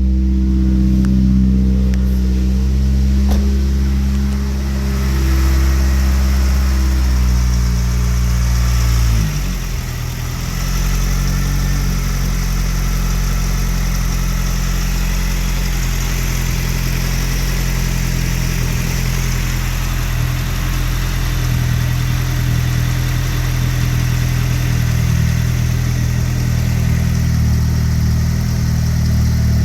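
Saab 9-5 turbo engine idling just after starting, held at a fast idle until about nine seconds in, when its speed drops and it settles into a steady lower idle. It is running well with a new exhaust-manifold-to-turbo gasket fitted, the big exhaust leak cured.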